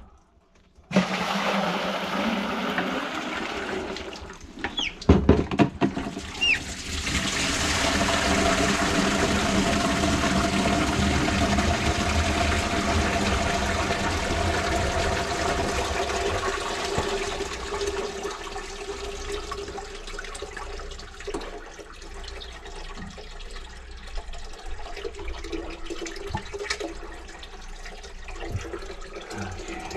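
Running water rushing steadily, loudest for about ten seconds from seven seconds in, then easing off. A few sharp knocks about five seconds in.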